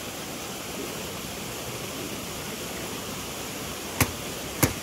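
Steady rush of a small waterfall pouring into a pool. Two sharp taps come near the end.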